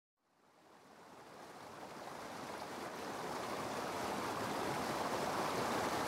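Steady rush of flowing water, fading in gradually from silence over the first few seconds.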